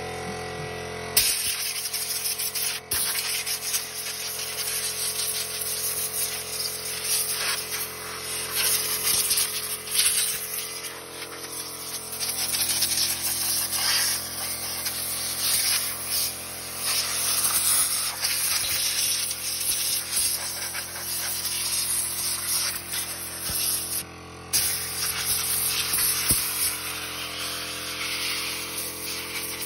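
Compressed-air blow gun hissing in long, uneven blasts as it blows dust out of a TV's circuit boards and chassis. It starts about a second in and cuts out briefly about 24 seconds in.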